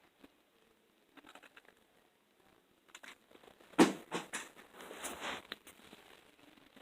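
Faint scattered clicks and soft rustling, with one sharp knock about four seconds in.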